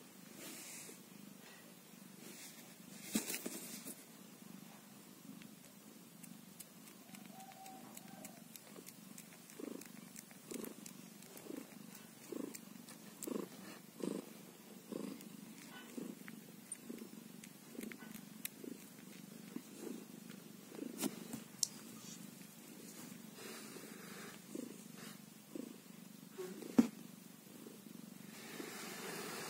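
White mother cat purring while nursing her newborn kittens, a soft low purr that swells and fades about once a second. A few sharp clicks stand out, the loudest near the end.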